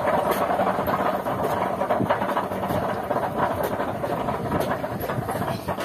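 An engine running steadily, with a few light knocks now and then.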